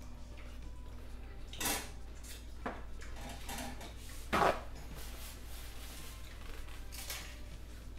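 Paper towel rustling and crinkling as it is handled, in a few short bursts, the loudest about four and a half seconds in, over a low steady hum.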